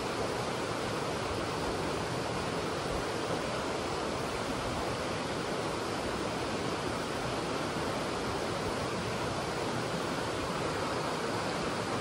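Steady rush of a mountain stream running over rocks.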